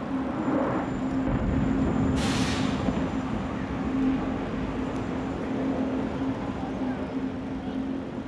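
City street traffic noise: a steady vehicle engine hum, with a short sharp hiss about two seconds in.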